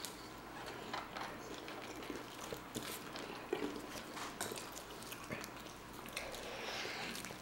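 Quiet chewing and biting into crispy battered-fish burgers, with scattered crunches and wet mouth clicks.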